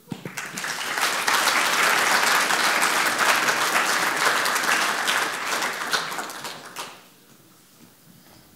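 Audience applauding at the end of a lecture. It swells over the first second, holds, and dies away after about six seconds.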